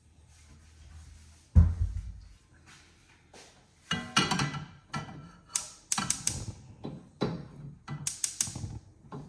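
Kitchen clatter as food is prepared: one heavy thump, then a run of irregular clicks, taps and knocks of utensils and dishware, a few with a short bright clink.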